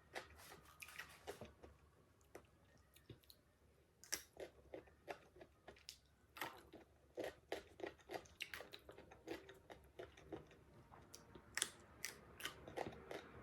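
Close, crunchy chewing of raw green mango: a string of short crisp bites and chews at an uneven pace, with a quieter pause about two seconds in.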